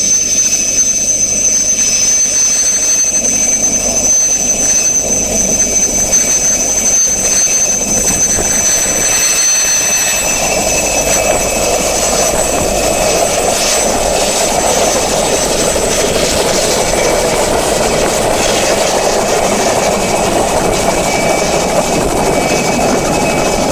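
Mi-2 helicopter's twin GTD-350 turboshaft engines running with the high whistle typical of this type, over the noise of the rotor. About ten seconds in, the whistle fades and a lower rushing rotor noise grows louder.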